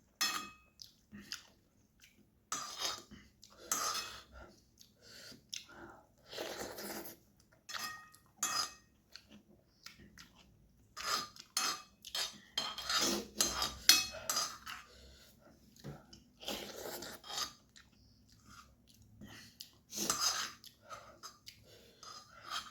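Close-miked eating of noodles: chewing, with irregular short clicks and longer noisy bursts of a bowl and utensils knocking and scraping.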